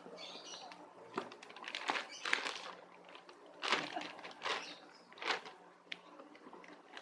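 Parcel packaging being torn open and handled: a series of short, sharp crackling rips and rustles.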